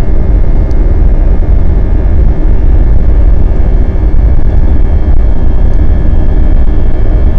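Airbus A320 heard from inside the cabin by the wing during the takeoff roll: the jet engine runs steadily at high thrust over a heavy low rumble from the wheels and runway, with a faint steady whine above it.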